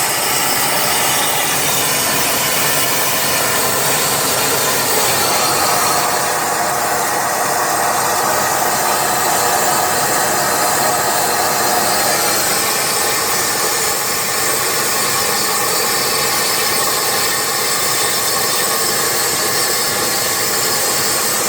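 CNC plasma torch cutting steel plate: a loud, steady hissing rush from the plasma arc and its air jet.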